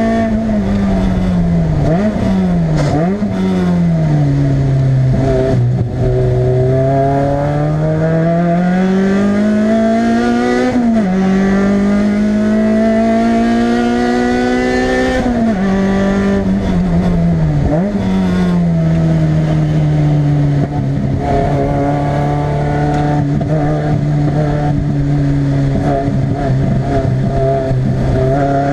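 Toyota MR2 Spyder's 1.8-litre four-cylinder engine, heard from inside the cabin, driven hard on a race track. The engine note climbs under acceleration and drops sharply at each gear change or lift several times, and holds a steadier, lower note for a stretch near the end.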